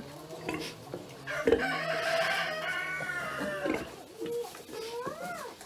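A rooster crowing once, a long call of about two and a half seconds that falls slightly in pitch, with a sharp knock just as it begins. Near the end come shorter bird calls that rise and fall.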